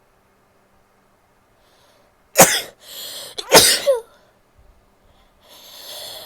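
A woman sneezing twice, about a second apart, with a hissing in-breath before the second. Another drawn-in breath builds near the end, leading into a further sneeze.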